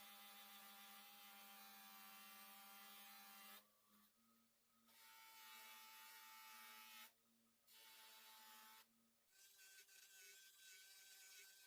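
Near silence, with a faint steady hum that stops and starts several times.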